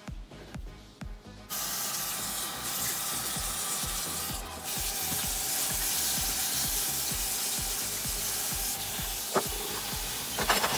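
Tap water running into a stainless steel sink, starting suddenly about a second and a half in as a steady hiss, over background music with a steady beat. A few sharp knocks come near the end.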